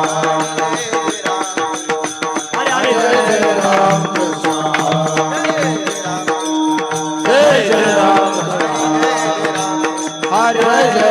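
Devotional kirtan music. A singer's voice glides through melodic phrases over a held drone, with a steady beat from a hand drum and small cymbals.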